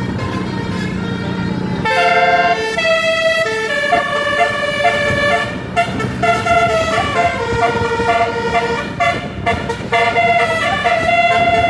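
Bus telolet horn, a multi-tone musical air horn, playing a tune of held notes that step up and down, starting about two seconds in over the low rumble of a bus engine.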